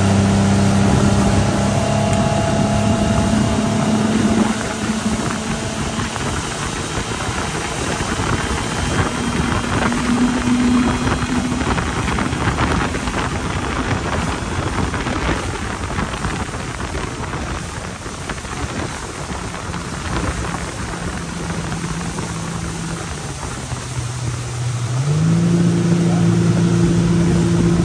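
Boat engine running under a steady rush of noise. Its note is strong for the first few seconds, sinks back, then steps up in pitch and gets louder near the end as it is throttled up.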